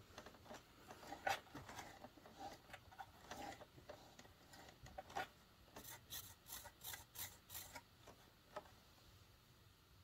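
Faint scraping and clicking of a hand rubbing the plastic nozzle and turning the brush roll of a 1995 Dirt Devil MVP upright vacuum, motor off. A little past halfway, a quick run of about six sharp strokes, about four a second, comes as the bristles brush past.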